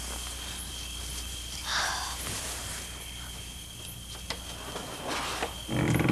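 Soft bedroom movement: bedcovers rustling and quiet footsteps across the floor over a steady tape hiss and hum, with a short, louder low thump just before the end.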